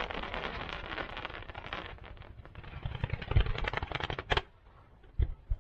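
Fireworks going off: a crackling hiss, then a fast run of sharp pops, a brief lull and a few last pops near the end.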